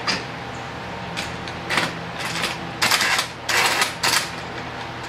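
Parallel bar clamp being worked: its jaw head sliding and catching along the chrome-plated hardened steel bar, a series of short irregular scraping clicks, about seven in all.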